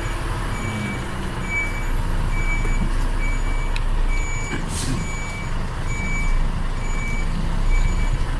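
A truck's reversing alarm beeps steadily, about once every three-quarters of a second, as the truck backs up, over the low running of its diesel engine, heard from inside the cab. There is a brief hiss about five seconds in.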